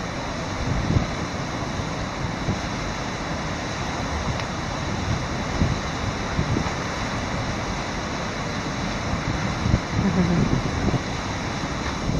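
Steady rushing of river water flowing through a dam, carrying floating ice, with some wind noise.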